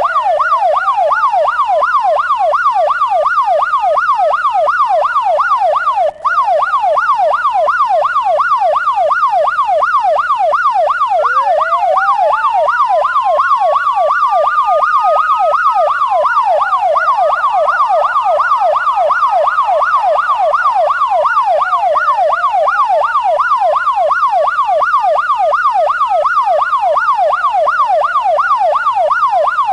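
Siren sounding a fast yelp, about three or four sweeps a second, overlaid with a slower wail that climbs over several seconds and drops back, again and again. The sound cuts out briefly about six seconds in.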